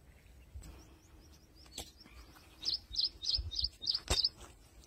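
A small bird calling in a quick run of high, short chirps, starting about halfway through and lasting a second and a half. Two sharp clicks sound, one just before the chirps and one near their end.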